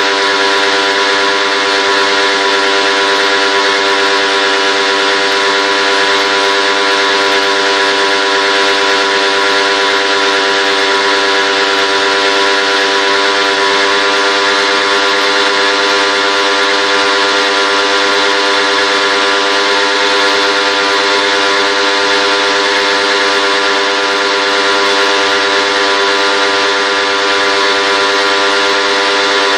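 A machine running steadily, with a constant whine and a hiss, unchanging in pitch and level throughout.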